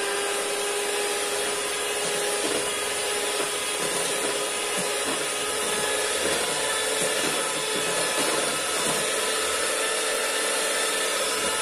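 Electric hand mixer running steadily at one speed, its beaters whirring through a thin cake batter in a stainless steel bowl, with light irregular knocks as the beaters touch the bowl.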